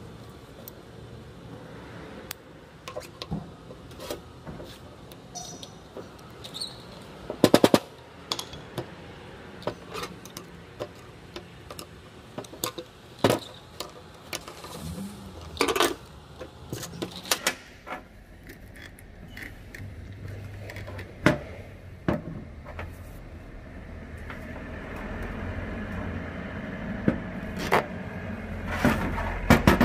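Metal parts and hand tools knocking and clicking against each other during bench work on a rice transplanter's rotor case. Irregular sharp knocks, with a quick rattle of several hits about seven seconds in. A low steady hum comes up over the last few seconds.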